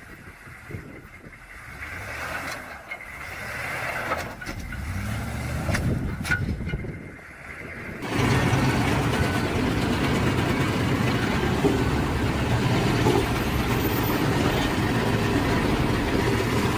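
Vehicle engine running and growing louder over several seconds. About eight seconds in, the sound cuts abruptly to a louder, steady engine drone.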